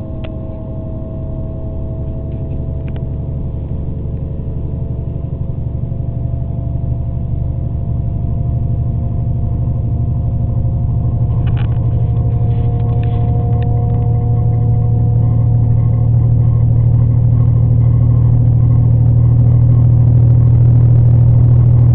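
Diesel regional train heard from inside the carriage as it picks up speed: a steady low engine hum under wheel and running noise, growing steadily louder, with a faint whine rising slowly in pitch. A few light rattling clicks come a little past the middle.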